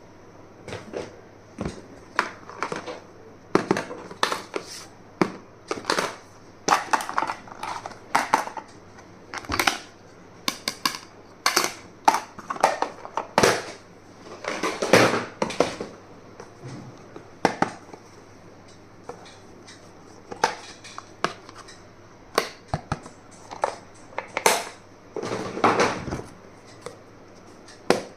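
Packaging crinkling and rustling in irregular bursts, with sharp clicks and taps as items are unwrapped and handled.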